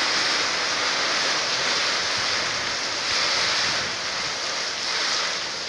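Squall-line storm: a steady rush of gusting wind and rain, swelling and easing every second or so.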